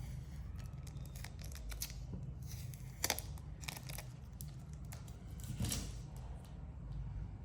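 Packaging handled by hand: short rustling and tearing strokes of wrapping, loudest about three seconds and five and a half seconds in, over a steady low hum.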